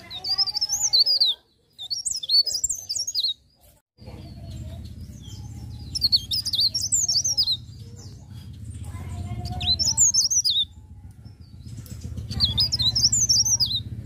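Cikrak daun (leaf warbler) singing in five quick phrases of rapid, high, twittering notes, each about a second and a half long with short pauses between them. A steady low rumble runs underneath from about four seconds in.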